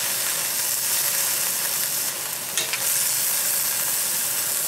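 Vegetables sizzling in a hot carbon-steel wok over high heat while a bamboo spatula stirs them, a steady frying hiss with a few short scrapes of the spatula against the wok.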